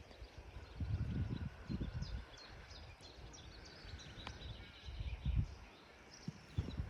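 An Irish Draught mare rolling on the ground: several short, low thuds and scuffs of her body against the ground, with small birds chirping faintly in the background.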